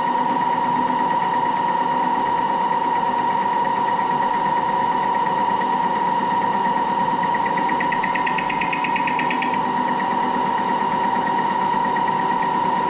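Moore jig borer spindle running with a steady high whine while its tool cuts a radius in a steel part. About eight seconds in, a rapid ticking chatter comes in for about two seconds.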